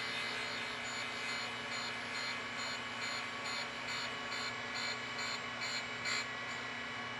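Precision grinder's wheel spinning with a steady motor hum while it takes a very light finishing pass on an A2 tool-steel part. A faint hiss of wheel contact comes about twice a second, getting stronger until it stops about six seconds in.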